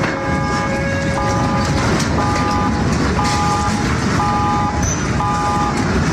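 Emergency alert alarm tone: a chord of three steady notes beeping about once a second, six times, each beep about half a second long, over steady loud noise.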